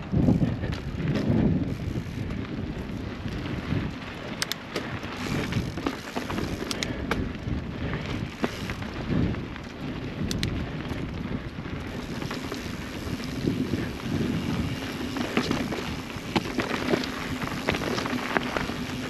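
Transition Spire mountain bike ridden along a dirt trail: a steady rumble of tyres on dirt and wind rush on the helmet-mounted microphone, with scattered clicks and rattles from the bike over bumps.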